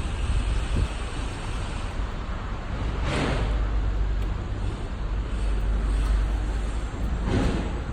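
Concrete mixer pump's engine running with a steady low rumble, wind buffeting the microphone. Two brief rushing swells of noise stand out, about three seconds in and near the end.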